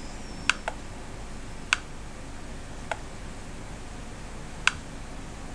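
Five sharp, scattered clicks over a faint steady hiss, the loudest about a second and three-quarters in and near the end.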